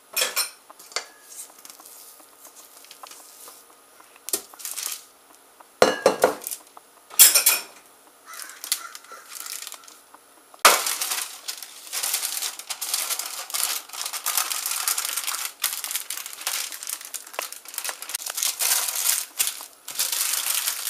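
A few scattered knocks and clinks of a bowl and utensils, then, about halfway through, continuous crinkling of wax paper being handled and folded around dough.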